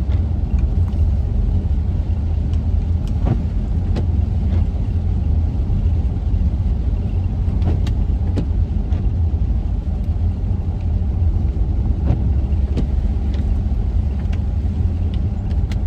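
Steady low rumble of a van driving along the road, heard from inside the cabin: engine and tyre noise, with a few faint scattered ticks.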